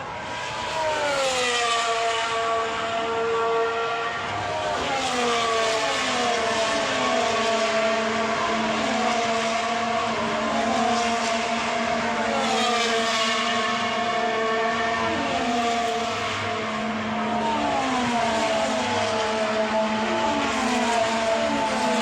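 Engines passing by one after another, each one's pitch dropping as it goes past, with a steady hum underneath.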